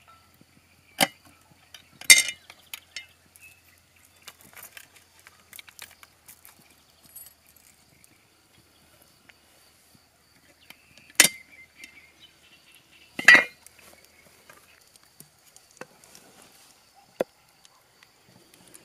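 Metal clanks and clinks of a cast-iron camp pot, its lid and wire bail handle being handled. There are a handful of sharp separate knocks, the loudest about two seconds in and again a little past the middle.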